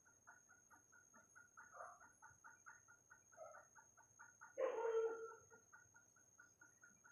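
Bird calls: a soft, rapid series of repeated notes, about six or seven a second, with one louder, longer call about four and a half seconds in.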